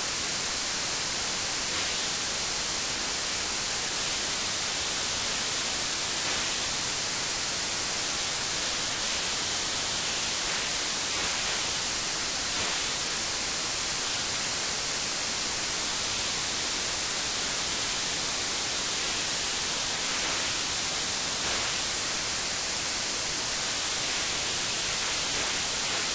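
Steady, even hiss of television static, strongest in the high range: the noise of a lost broadcast signal.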